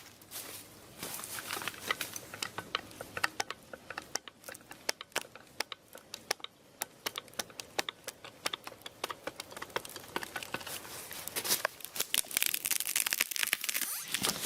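Irregular crackling and snapping of dry wood, twigs and brush, scattered single cracks that grow into a denser rush of crackling near the end.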